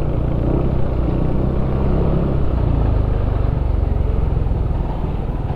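Yamaha Aerox 155 scooter's single-cylinder engine running as it is ridden along a street, a low, steady drone mixed with road and wind noise.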